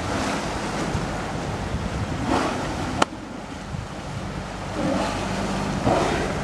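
Wind buffeting the microphone over moving water, with several swelling rushes of noise and one sharp click about three seconds in.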